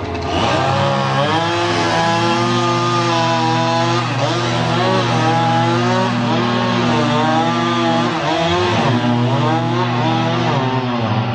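Chainsaw cutting tree limbs, its pitch rising and dipping again and again as it revs and takes load in the wood. A steady low engine hum runs beneath it.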